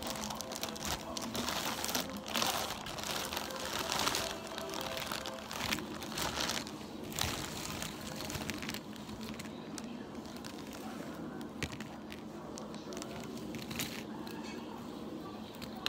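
A clear plastic bag of cardboard jigsaw puzzle pieces crinkling and rustling while pieces are handled and rattled. The crinkling is loudest in the first half and quieter after about nine seconds.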